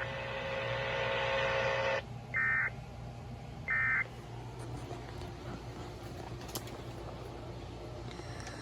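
NOAA Weather Radio SAME end-of-message data bursts: two short warbling digital tone bursts about a second apart, marking the end of the alert. Before them a steady buzzing noise cuts off about two seconds in.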